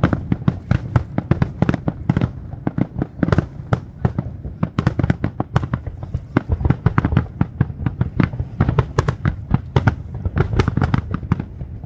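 A fireworks display: a dense, rapid run of shell bursts and bangs, several a second, over a steady low rumble.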